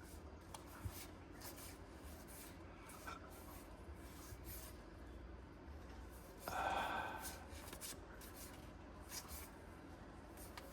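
Pokémon trading cards being slid and flipped through by hand: faint rubbing and light clicks. A short, louder sound comes about six and a half seconds in.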